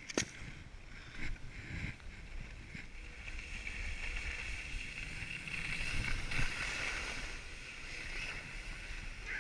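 Skis sliding and hissing over packed snow during a downhill run, with wind rumbling on the microphone. A sharp click comes just after the start, and the hiss grows louder and steadier from about three seconds in.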